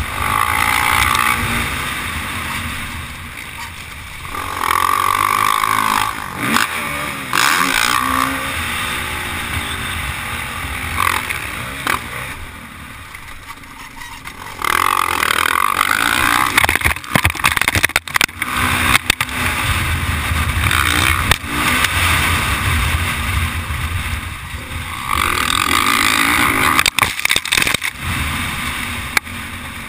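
Dirt bike engine heard from a camera mounted on the bike, revving up and backing off in repeated surges as it accelerates and shifts around a motocross track. Several sharp knocks come through around the middle and again near the end.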